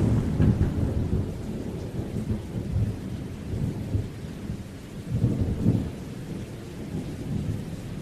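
Thunder rumbling low and dying away, with a second swell about five seconds in, over the faint hiss of heavy rain from a summer thunderstorm.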